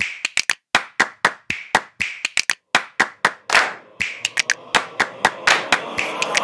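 Keyboard typing sound effect: a quick run of sharp key clicks at uneven spacing, a few per second, with one longer, softer swish a little past the midpoint.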